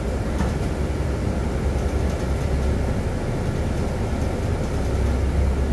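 Bus engine running and a steady low rumble heard from on board as the bus moves off slowly.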